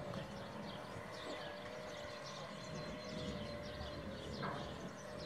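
Small birds chirping and singing in quick short notes over a steady low hum and outdoor ambience.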